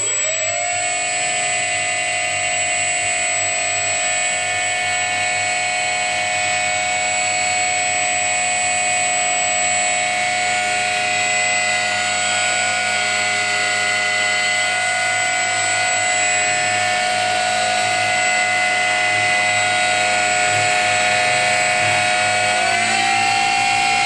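Parkzone P-47D model plane's brushless electric motor spinning its propeller: a steady high whine that spins up at the start, holds, and rises in pitch near the end as the throttle is opened. The motor runs smoothly.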